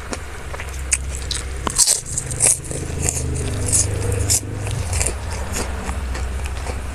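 A person biting and chewing crunchy food close to the microphone, with sharp crisp crackles that are loudest over the middle few seconds, over a steady low hum.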